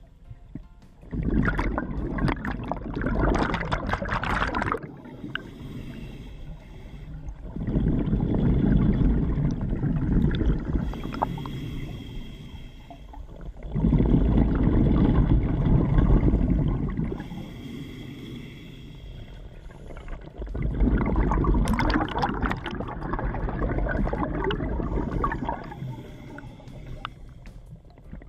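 Scuba regulator breathing underwater: four slow breaths, each exhalation a long, loud rush of exhaust bubbles, with quieter hissing inhalations through the demand valve in between.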